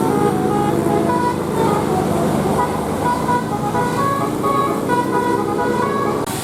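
Basuri multi-tone bus horn playing a 'telolet' tune: a quick run of short high notes stepping between pitches, over a bus engine running.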